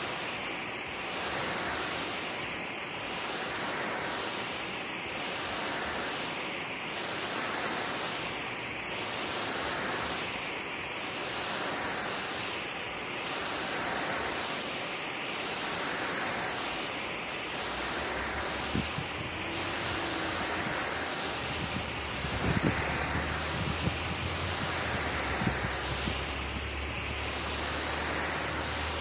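Water spraying onto a lawn, a steady hiss that swells and fades in a regular rhythm about every two seconds. About two-thirds of the way in, a low rumble with a few thumps joins it.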